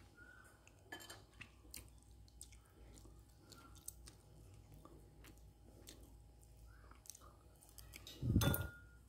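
Wooden chopsticks and a metal spoon clicking and scraping against a ceramic rice bowl, small scattered ticks, with soft chewing. A single louder thump near the end as the spoon digs into the rice.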